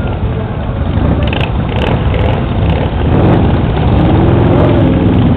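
Motorcycle trike's engine rumbling as it rolls slowly past. About three and a half seconds in, the engine pitch rises and then eases back.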